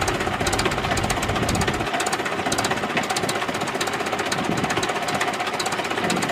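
Mahindra tractor's diesel engine running with a rapid, steady clatter.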